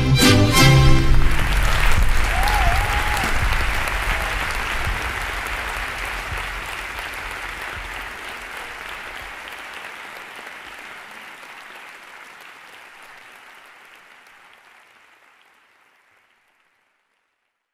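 Music stops about a second in and audience applause takes over, fading out steadily until it is gone.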